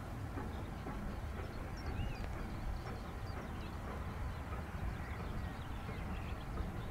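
A steady low rumble of outdoor background noise, with faint, scattered bird chirps over it.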